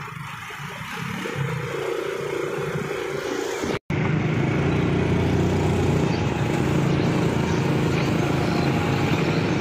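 Yamaha motorcycle's engine running steadily while being ridden, heard from the rider's seat. A brief break about four seconds in, after which the engine is louder.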